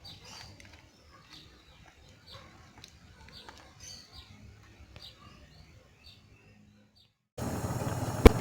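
Faint bird chirps over a low steady hum. About seven seconds in they cut off abruptly and loud music with a beat begins.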